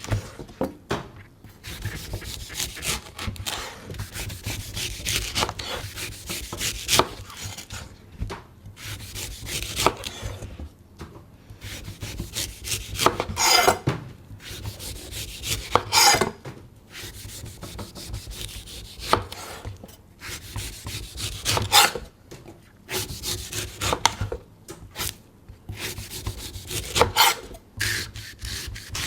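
A knife cutting and scraping through a coconut in an irregular run of rasping strokes, a few of them louder and longer than the rest.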